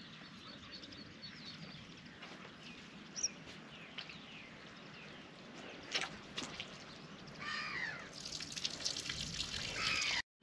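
Wet sounds of soft tidal mud and water: squelching, dripping and trickling with scattered small clicks, growing louder near the end, and faint bird calls over it.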